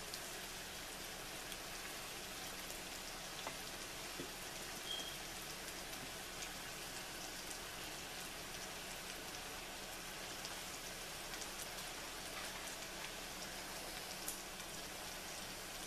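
Skillet of sliced pork, bell peppers and onions sizzling steadily on a gas burner, with scattered small pops.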